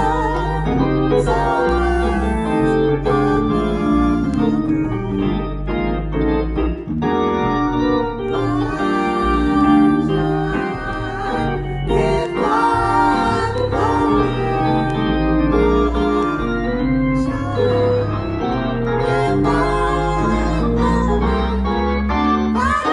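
Gospel song played on an electric keyboard with an organ sound: full sustained chords over a moving bass line. A man sings along over the chords.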